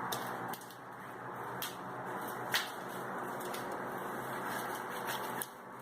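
Homemade glue slime being kneaded by hand, still sticky: a few faint sharp clicks and squelches over a steady hiss.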